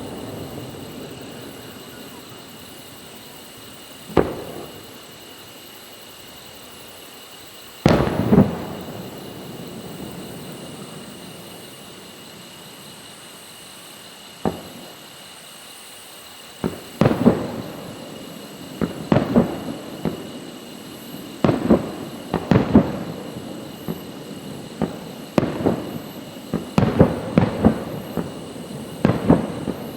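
Aerial fireworks shells bursting, each bang trailing off in an echo: a few single bangs spaced seconds apart, then from a little past halfway a quick run of bangs, several in close succession.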